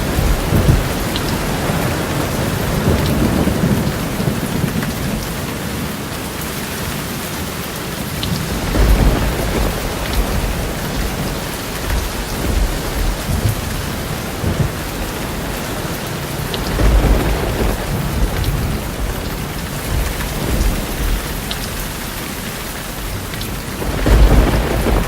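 Steady rain falling during a thunderstorm, with rolling rumbles of thunder that swell and fade several times.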